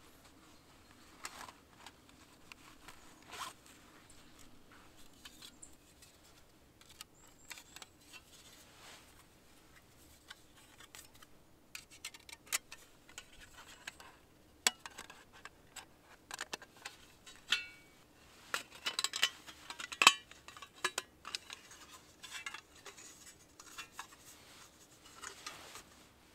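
Thin metal plates of a flat-pack folding camp stove clicking, clinking and scraping as they are handled, slotted together and set down. The handling is sparse at first and grows busy and louder about three-quarters of the way through, with one sharp clink the loudest.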